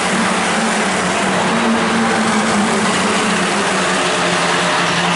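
Formula 4 race cars (Tatuus single-seaters with Abarth 1.4-litre turbo four-cylinder engines) running at high revs as two cars race side by side past the track; a loud, steady engine note.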